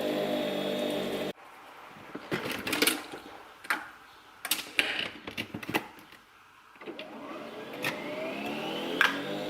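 Clicks and knocks of a Nespresso coffee machine being handled, then its motor starting up: the whir rises in pitch over about two seconds and then runs steady as it brews. A steady hum before that cuts off suddenly about a second in.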